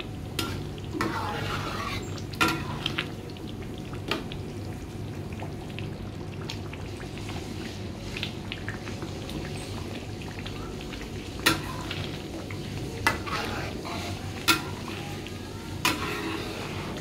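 Red chili sambal paste sizzling and bubbling in oil in a metal wok as it cooks down, with a metal ladle clinking sharply against the wok several times.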